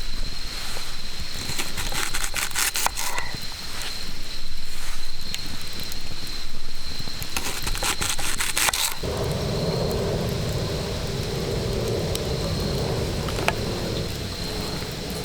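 Wood crackling and snapping in two bursts of rapid sharp clicks. From about nine seconds a steady low rushing noise takes over.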